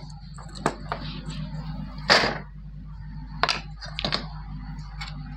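A printed circuit board being handled: a few sharp taps and clicks, the loudest a brief scrape-like knock about two seconds in, over a steady low hum.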